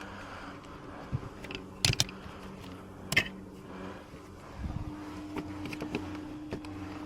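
Sharp clicks and taps of hardware being handled as a screw is driven back into the plastic door-handle mount, three louder clicks near the middle, over a faint steady hum.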